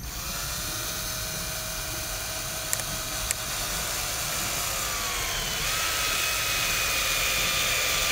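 Cordless drill driving a screw into a wooden post. Its motor whines steadily, with two sharp ticks about three seconds in. About five seconds in it slows and drops in pitch under load, then picks up again and keeps running.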